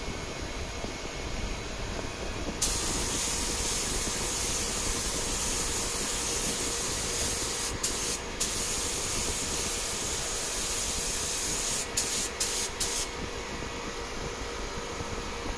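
Paint spray gun spraying the purple top coat: a steady hiss of atomised paint and air that starts about two and a half seconds in, is interrupted briefly a couple of times, then ends in a few short spurts as the trigger is worked and stops about 13 seconds in.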